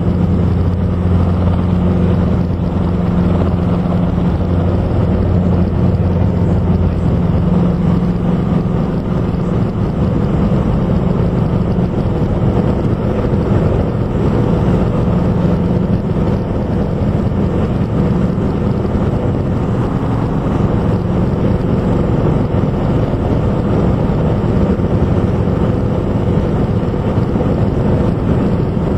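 Robinson R22 helicopter running, heard from inside the cockpit: a loud, steady engine and rotor drone with a low hum that is strongest in the first ten seconds or so.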